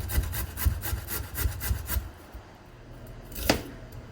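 Zucchini being grated on a hand grater: quick rasping strokes, about five a second, that stop about two seconds in. Then a single knock near the end.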